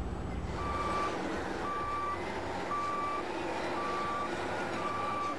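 Backup alarm of a Caterpillar D8N bulldozer beeping, one steady pitched beep about every second, five times, over the machine's running noise. A brief low rumble comes just before the beeping starts.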